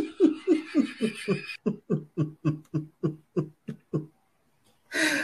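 A person laughing heartily in a long run of rhythmic "ha-ha" pulses, about three to four a second, tailing off about four seconds in.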